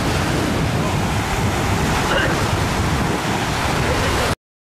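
Sea surf breaking and washing up a sandy beach, with wind rumbling on the microphone; the sound cuts off abruptly near the end.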